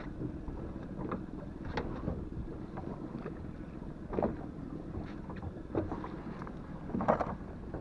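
Wind buffeting the microphone and small waves lapping against the hull of an inflatable boat drifting at sea, with a few short knocks and slaps scattered through.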